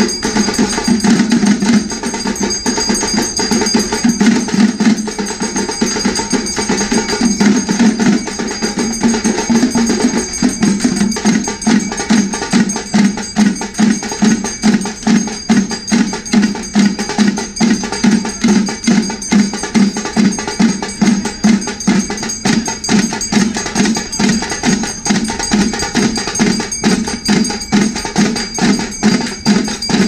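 Tamil temple procession percussion: drums beating a steady, even rhythm of about two strokes a second, with a high steady ringing tone over it.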